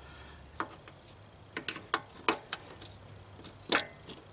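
A series of sharp metallic clicks and clinks from pliers and small parts against an Arctic Cat 250's transmission case as the speedometer drive is worked loose, the loudest click about three-quarters of the way in.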